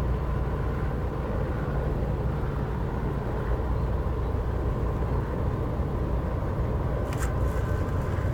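Steady low outdoor rumble, typical of wind buffeting a phone microphone, with a few brief sharp clicks about seven seconds in.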